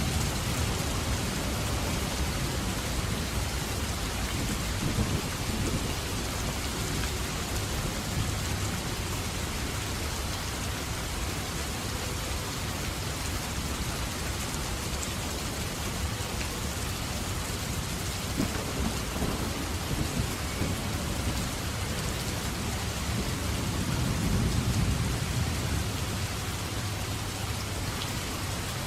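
Steady heavy rain falling, with low rolls of thunder; the loudest thunder rumble swells and fades a little before the end.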